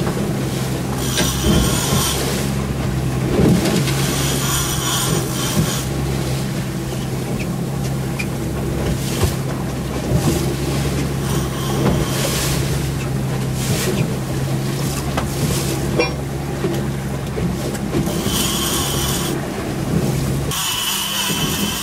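Boat engines running steadily at slow trolling speed, one in gear and one in neutral, with wind and water hiss coming and going over the hum. Near the end the engine hum stops and only a hiss remains.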